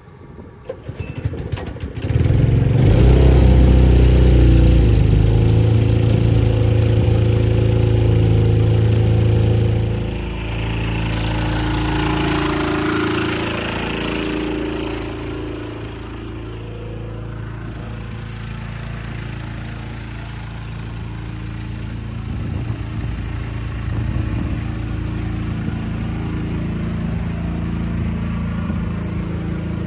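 An engine starts about two seconds in and runs steadily, easing to a quieter, lower running speed after about ten seconds. A rushing hiss sounds over it for a few seconds around the middle.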